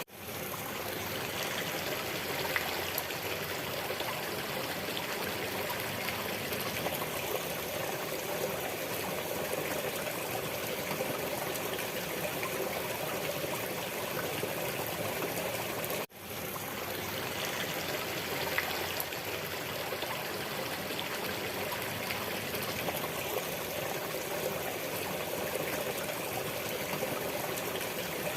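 Steady trickling and rushing of a small stream, a constant water sound that briefly drops out and fades back in about halfway through, as a looped recording restarts.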